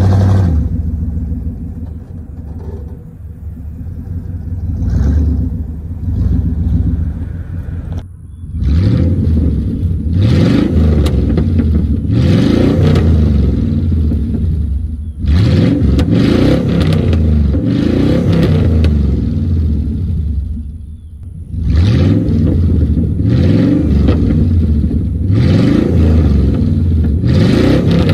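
1999 Chevrolet 1500's 5.7-litre V8 running through open true-dual exhaust with the mufflers cut off. It first pulls away hard, then from about eight seconds in it is revved again and again in quick rising blips, in three runs, with sharp backfires as the revs drop.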